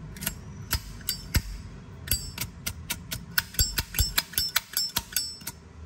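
Zippo lighter being handled: a quick string of sharp metallic clicks and clinks, some ringing briefly, coming faster from about two seconds in.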